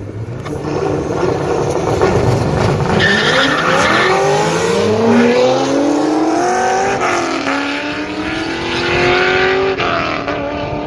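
Nissan GT-R's twin-turbo V6 and Chevrolet Corvette's V8 launching side by side and accelerating flat out down a drag strip. The engine notes climb in pitch, drop at each gear change and climb again, then ease off a little near the end as the cars draw away.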